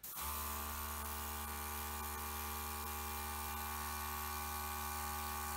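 Airbrush compressor running with a steady hum and an even hiss of air, starting abruptly.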